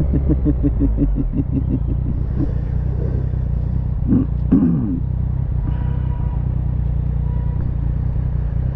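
Motorcycle engine running steadily while riding, with road and wind rumble picked up by a mic on the moving bike. A brief voice-like sound comes about four seconds in.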